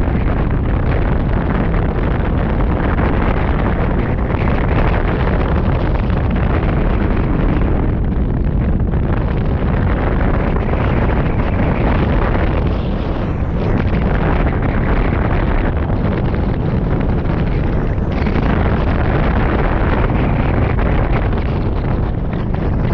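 Airflow buffeting the microphone of a camera mounted on a hang glider in flight: a loud, steady rush of wind noise, heaviest in the low range.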